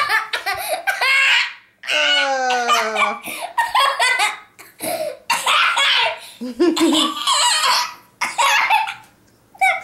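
A young boy laughing hard in a fit, peal after peal of high-pitched laughter with falling pitch and a few short breaks for breath.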